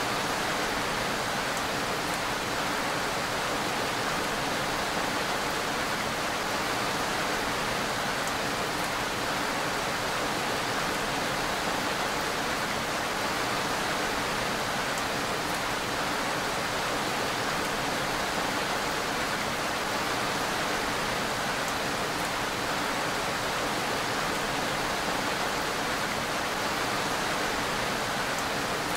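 Steady rain falling, an even unbroken hiss with no thunder.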